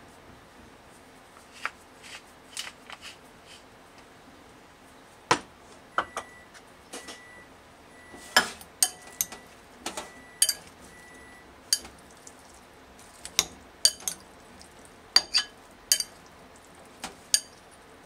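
A spoon and fingers clinking and tapping against a glass mixing bowl and a ceramic dish while chicken and cucumber are tossed: about twenty light, irregular clinks, some ringing briefly.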